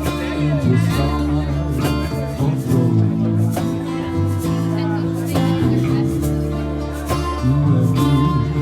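Live acoustic music in an instrumental passage: strummed acoustic guitar over steady low held notes.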